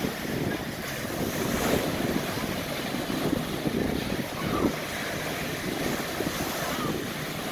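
Wind buffeting the microphone over the steady wash of surf and choppy sea.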